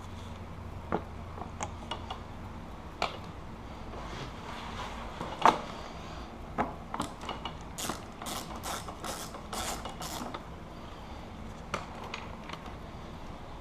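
Tools and fasteners handled while motorcycle body panels are bolted back on: scattered sharp clicks and knocks, then a quick run of about six rasping, ratchet-like strokes about eight seconds in, as a screw is worked in.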